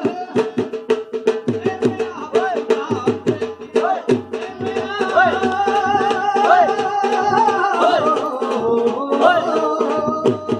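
Punjabi bhangra music playing loud: a fast, even drum beat with a melody over it.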